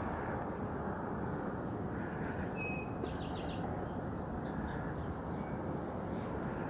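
Small songbirds chirping: a short high note, then a quick run of four notes and a few fast trills, over a steady outdoor rumble of wind-like background noise.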